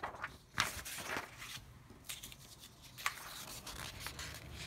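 Sheets of printer paper being handled and swapped on a desk, sliding and rustling in several short rustles.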